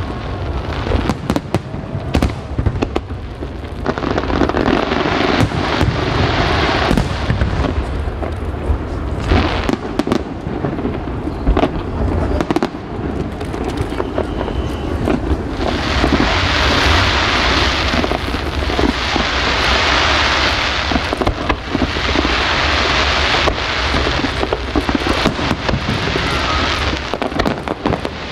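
Fireworks display: a rapid, continuous barrage of bangs and booms over a low rumble. Several stretches of dense crackling and fizzing run through it, mostly in the second half.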